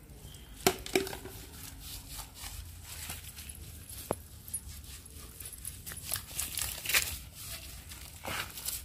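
Hands scrubbing shampoo into a wet dog's short coat: irregular rubbing and squishing, with a few sharp clicks, two of them about a second in.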